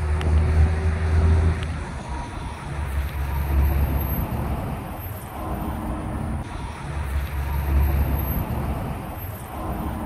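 Highway traffic passing, the noise rising and falling in three swells as vehicles go by.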